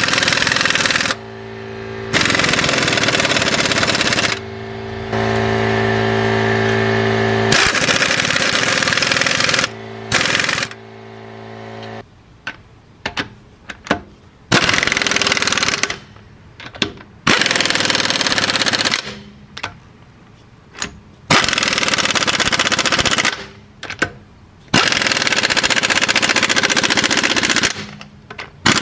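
Hart 1/2-inch pneumatic impact wrench hammering in repeated bursts, from under a second to several seconds each with short pauses between, as it works a car's suspension bolts and wheel lug nuts. A steady hum sits under the first dozen seconds.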